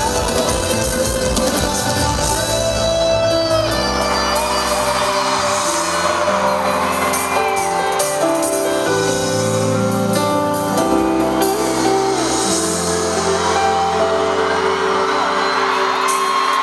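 Live pop music from a band with a male singer, with crowd shouts and whoops over it. About four seconds in the drums drop out, leaving held chords.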